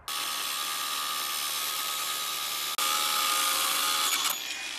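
Cordless Makita angle grinder cutting through a steel threaded bar: a steady high-pitched whine and grinding hiss. It breaks off briefly just before halfway, comes back louder, and eases near the end.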